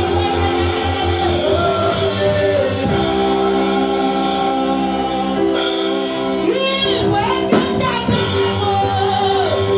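A woman singing worship through a microphone over amplified backing music, with held chords and, in the first few seconds, a pulsing bass beat.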